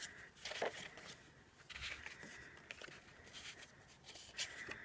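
Small cardstock cards being flipped and slid against one another by hand: a run of faint, quick papery rustles and clicks.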